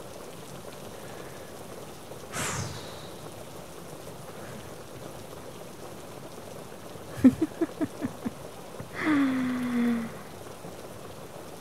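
Steady rain. A woman's voice breaks in without words: a breathy exhale about two seconds in, a quick run of short voiced breaths around seven seconds, and a groan that falls in pitch near nine seconds.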